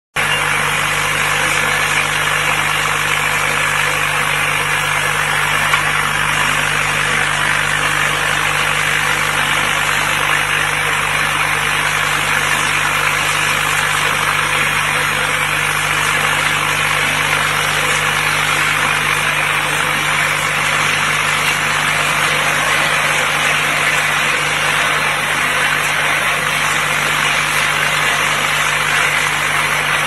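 Rotary lid sorting bowl running steadily, its white plastic chubby gorilla bottle caps rattling and sliding against the stainless steel bowl and rim track over a constant machine hum.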